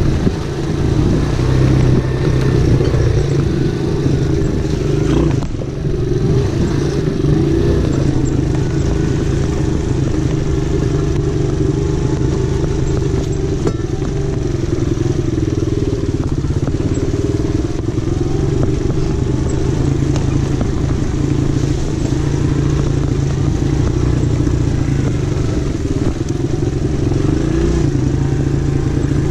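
Small ATV engine running steadily under way at a constant pace, heard from on board the moving quad, easing off briefly about five seconds in.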